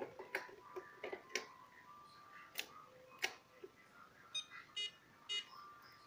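ILIFE V5 robot vacuum cleaner giving three short beeps near the end, the short tone it makes when switched on although it will not run. Before that come four sharp plastic clicks of a hand on the robot's lid and button.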